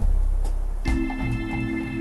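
Background music: a deep bass note, then a held keyboard chord with light percussion coming in about a second in.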